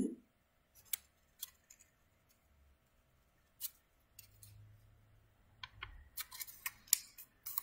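Paper being handled and folded by hand: a few faint isolated crackles, then a quicker run of crinkling clicks near the end as a paper strip is creased in half lengthwise.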